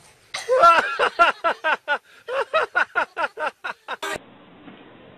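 A person laughing loudly in a quick run of short bursts, each falling in pitch, for about three and a half seconds; it cuts off abruptly about four seconds in, leaving faint hiss.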